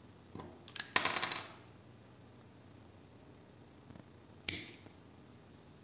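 Light metal clicks and a short clattering rattle about a second in, then one sharp clink with a brief ring near the end: small metal knitting tools being handled as the yarn is cut.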